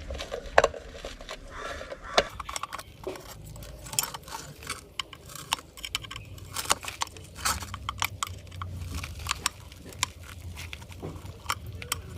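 Screws being loosened from the metal motor housing of an old ceiling fan, and the housing opened: many scattered metallic clicks and taps from the screwdriver, screws and metal parts.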